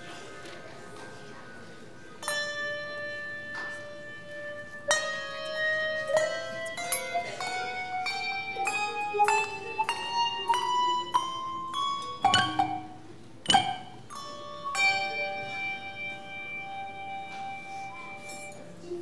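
Handbell choir ringing brass handbells: struck notes that ring on, then a rising run of notes over a falling lower line from about five seconds in. Two sharp knocks come near the middle.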